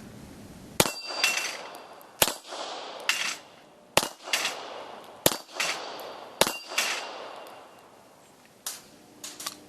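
Bulgarian Makarov 9x18mm pistol fired five times at a steady pace. Each shot is followed a moment later by the clang of a steel plate being hit and ringing. A few faint clicks come near the end.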